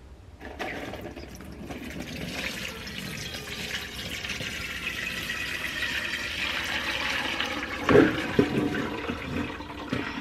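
Broth poured in a steady stream from a large stock pot into a colander lined with coffee filters, splashing and growing louder as the pour goes on: straining the broth. Near the end there is a loud clunk, as the pot is set down, followed by a few lighter knocks.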